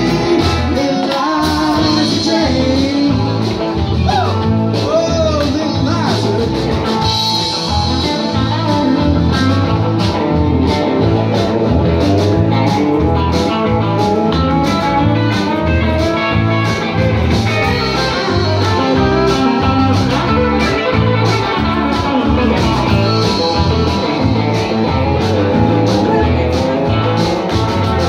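Live rock band playing a blues-tinged song: electric guitars and bass over a steady drum beat, with a woman singing lead.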